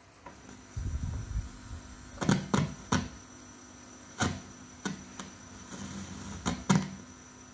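Sharp clicks of the switches on a partly dismantled Sony CFS-1110S cassette radio being switched over to radio, with a low knock of handling near the start and a faint steady hum underneath.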